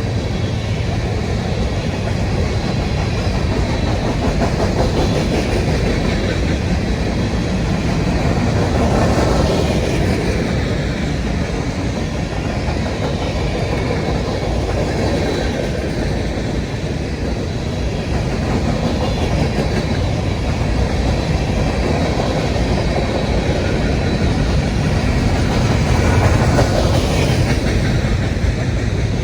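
A train's cars rolling past on the track: a steady rumble of wheels on rail, swelling slightly a few times.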